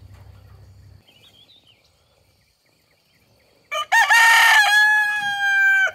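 Rooster crowing loudly once, starting a little past halfway. A short first note is followed by a long held final note that falls slightly and cuts off sharply.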